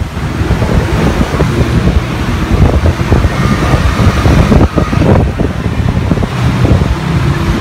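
Tuk-tuk driving through city traffic: steady engine and road rumble from the open three-wheeler, with wind buffeting the phone microphone.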